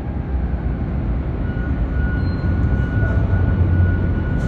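Steady low mechanical rumble, with a thin steady whine that comes in about a second and a half in and a second higher tone joining near the end.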